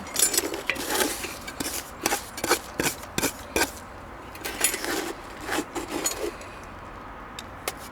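Irregular scraping and knocking strokes of a hand tool working against a brick wall, a dozen or so rasping scrapes and knocks, thinning out near the end.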